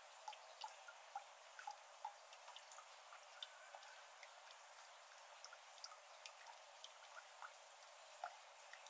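Faint, irregular water drops plinking into the shallow water of a flooded iris garden, a few per second over a steady faint hiss, with no frogs calling.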